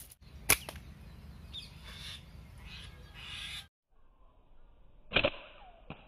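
Two sharp snaps of a slingshot shot, one about half a second in and one a little after five seconds, with some rustling between them.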